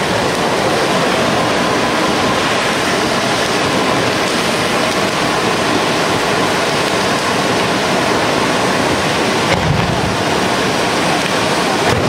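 Several tezutsu hanabi, handheld bamboo-tube fireworks, spraying at once, a loud steady rushing hiss. Two dull thumps come in the last few seconds.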